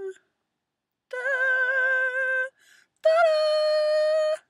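A woman singing two long held notes without words, the second higher and louder than the first, with a short pause between them.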